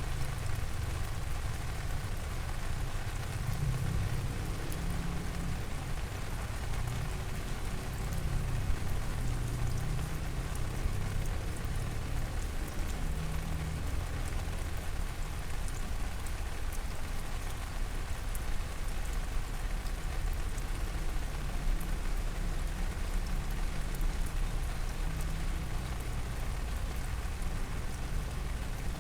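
Steady rain falling, with scattered drops ticking, over a constant low rumble.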